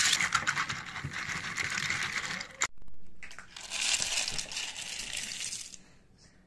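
Plastic keyboard keycaps being swished and rattled by hand in a bowl of water. The sound cuts off suddenly about two and a half seconds in. After a short pause, the pile of keycaps clatters and slides as it is tipped out of the plastic bowl onto a towel.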